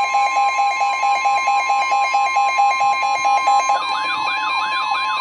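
Several weather radios alarming at once ahead of a severe thunderstorm warning, with a steady long warning-alarm tone running throughout. Over it, one radio beeps about four times a second until nearly four seconds in, when a rising-and-falling warble starts, about two to three sweeps a second.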